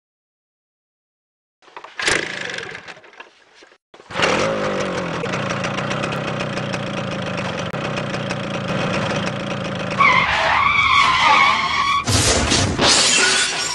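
Motorcycle being kick-started: a kick about two seconds in sets off a short burst that dies away, then the engine fires about four seconds in and runs steadily. Over the last few seconds it grows louder, with a wavering higher whine and a loud burst near the end.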